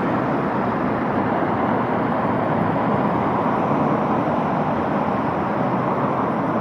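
Steady road traffic noise: an even, continuous rush of passing cars with no distinct single events.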